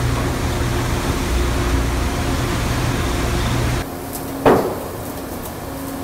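Fish-processing machinery running with a steady, loud hum and low drone; about four seconds in the hum drops to a quieter level, and half a second later comes one loud heavy thump, with faint clicks after it.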